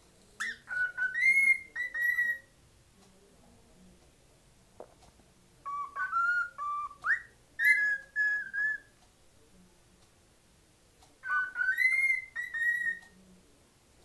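Pet cockatiel whistling, three short whistled phrases of clear notes stepping up and down in pitch, with pauses of a few seconds between them.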